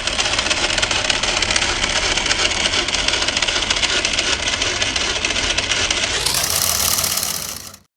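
A motor running steadily with a dense, fast rattle.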